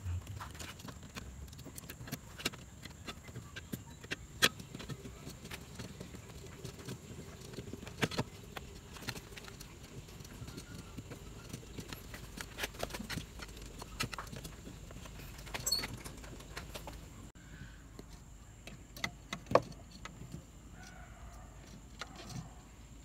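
Irregular clicks and light knocks of hard plastic parts being handled as an H4 LED headlight bulb and its wiring connector are fitted into the back of the headlight housing, with a few sharper clicks among them.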